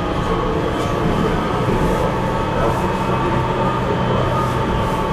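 Electric tram running, a steady rumble with several held whining tones from its drive.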